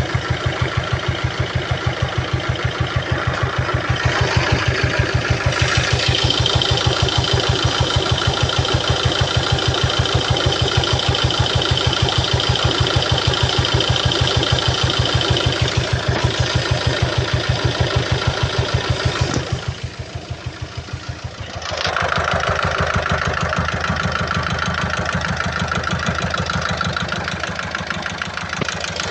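Peugeot Partner's 1.6 HDi four-cylinder diesel idling with a fast, even knocking pulse, on a 216,000-mile engine that the owner found stopped knocking once the oil was filled to full. About twenty seconds in, the sound turns quieter and duller for a couple of seconds, then comes back.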